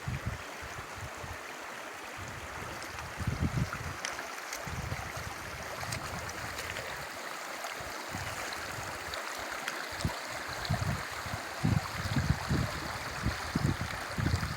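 River water rushing steadily, with irregular low bumps that come more often in the last few seconds.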